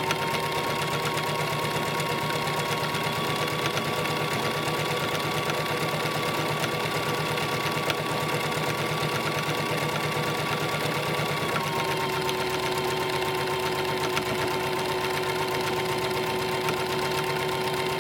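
Electric sewing machine running continuously while top-stitching a fabric lanyard: a steady motor whine with rapid needle ticking, easing to a slightly slower speed about two-thirds of the way through.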